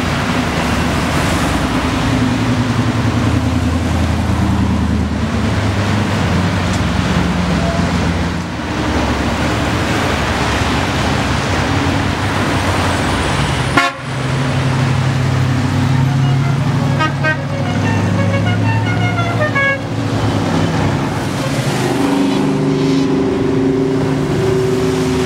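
Vintage cars driving past in a steady stream, their engines running over wet-road traffic noise, with horns tooting. A brief drop in the sound about halfway through.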